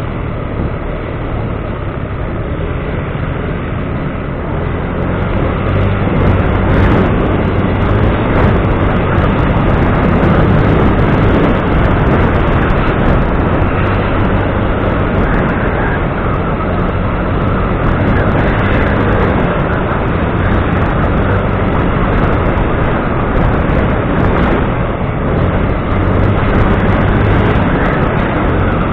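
A motor vehicle on the move: steady engine and road noise, growing a little louder about five seconds in.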